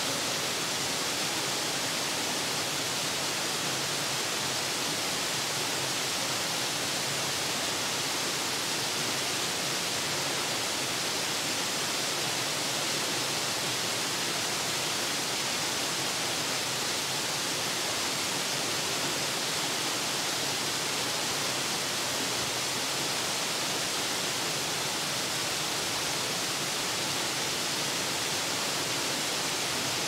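Steady, even rushing of a waterfall falling into a pool.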